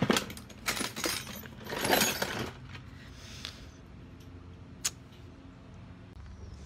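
Small metal tools being handled: clinks and sharp clicks near the start, a short scraping rustle about two seconds in, and one more click near five seconds.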